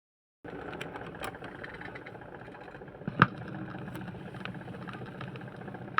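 Playback noise of an old music recording: a steady low hiss and rumble with scattered faint clicks and one louder pop about three seconds in.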